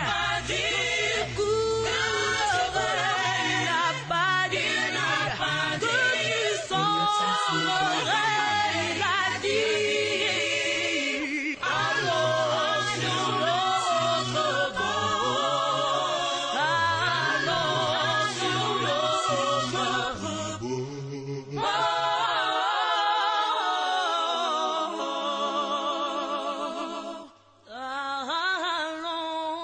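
Background music: several voices singing a religious song, with a brief drop-out near the end.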